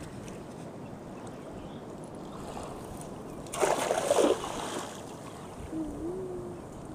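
Waves washing steadily, with a splash about three and a half seconds in as a lead-weighted cast net lands in the sea.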